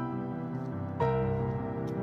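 Slow, soft instrumental background music, with a new chord struck about a second in.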